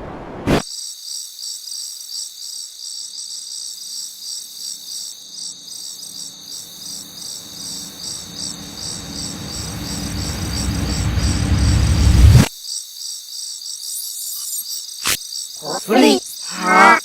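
Cricket chirping ambience, a steady rapid trill. Beneath it a low rumble builds for several seconds and cuts off suddenly about twelve seconds in.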